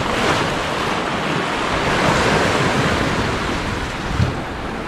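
Sea surf washing against the shoreline rocks, a steady rushing noise, with wind on the microphone. A short thump about four seconds in.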